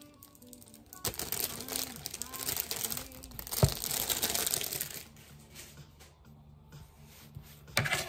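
Thin clear plastic shrink-wrap being peeled off a paperback book and crumpled in the hands, crinkling loudly from about one second in until about five seconds. A couple of short knocks on the table follow near the end.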